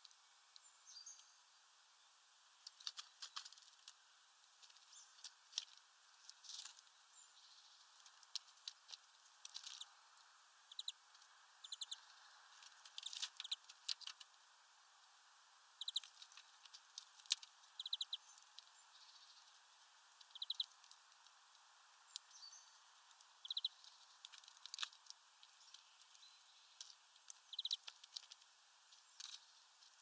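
Irregular sharp clicks and taps from European greenfinches and goldfinches cracking sunflower seeds and pecking at a feeder tray, with short high chirps now and then over a faint steady hiss.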